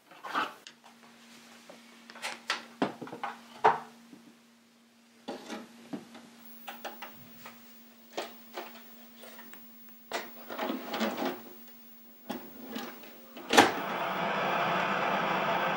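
Plastic clicks and knocks of a VHS cassette being handled and loaded into a video recorder, over a faint steady hum. Near the end a loud click, then a steady hiss of television static.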